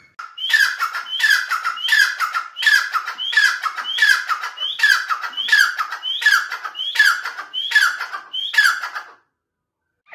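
Grey francolin (teetar) giving its loud repeated call: about thirteen evenly spaced calls, roughly three every two seconds, each a short rising note followed by a falling one. The calling stops about a second before the end.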